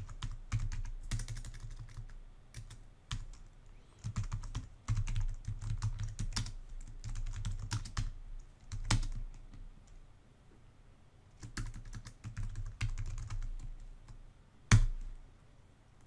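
Typing on a computer keyboard: quick bursts of key clicks with short pauses between them, then a single harder keystroke near the end.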